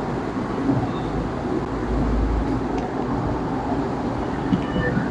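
A steady low rumbling noise that swells up just before and holds throughout, with a few faint short squeaks of a marker writing on a whiteboard.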